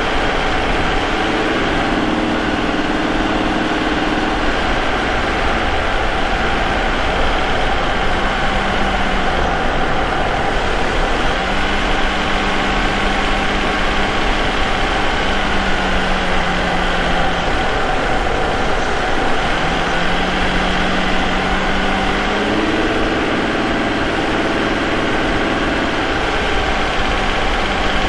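Vauxhall Omega's 3.2-litre 24-valve V6 running steadily while the car is driven, picked up close to its K&N air filter, with the engine note shifting up and down a little a few times.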